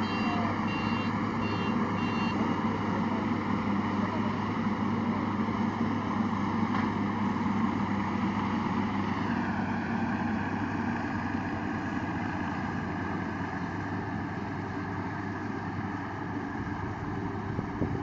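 Rice combine harvester running steadily while harvesting, a continuous engine drone with a held high whine that drops slightly in pitch about nine seconds in. A rapid electronic beeping sounds over it for the first couple of seconds, then stops.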